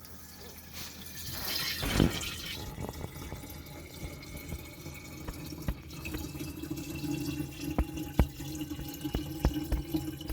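Water poured from a jug through a funnel into a dishwasher's empty salt reservoir, running and gurgling with many small drips. This is the first-time fill of about a litre of water that goes in before the softener salt. There is a knock about two seconds in.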